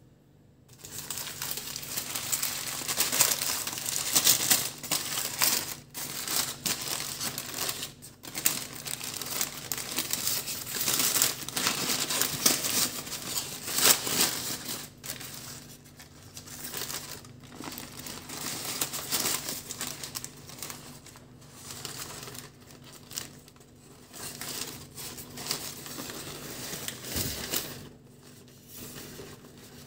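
Paper sandwich wrapper crinkling and rustling as it is unfolded by hand from around a tortilla wrap. It starts about a second in, is loudest in the first half, and turns quieter and sparser near the end.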